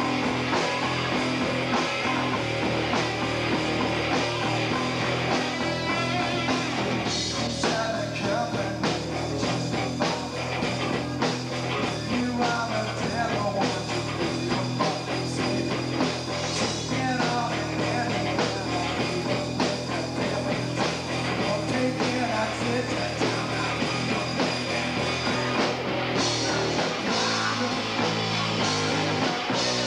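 Live rock band playing loud: electric guitar, bass guitar and drum kit. The playing changes about four seconds before the end.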